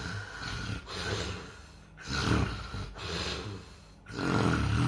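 A sleeping person snoring: five rasping breaths, the loudest snores about two seconds in and near the end, with softer breaths between.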